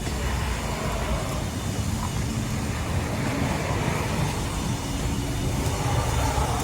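Steady background room noise: a low, even rumble with a faint hum and no distinct events.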